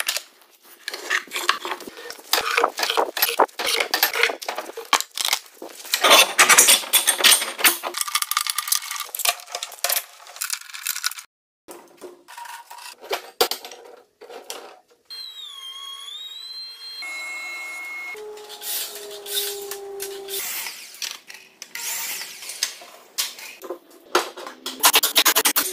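Woodworking shop handling sounds: wooden barrel staves clattering and knocking together while pipe clamps are set and tightened, a dense string of quick knocks and clicks. About halfway through comes a short wavering squeal, followed by a few seconds of steady humming tones.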